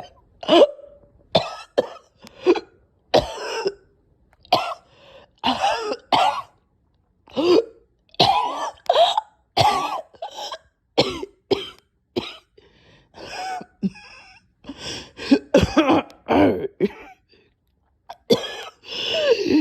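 A person coughing over and over in short, loud fits, with throat clearing and choking sounds between the coughs. It is a bad, choking cough of someone who is ill.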